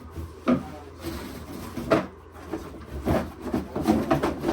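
Indistinct voices in a small room, with a few sharp knocks and rubbing sounds of something being handled.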